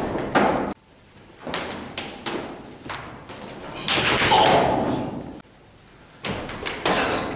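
Thumps, slaps and scuffs of close-range martial arts sparring against a stick: strikes, feet scuffling and bodies going down on the floor. The sound cuts off abruptly twice.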